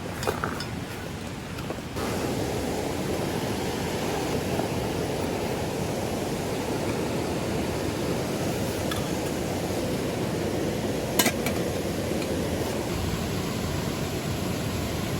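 Steady rush of flowing river water, stepping louder about two seconds in, with one sharp click near the end.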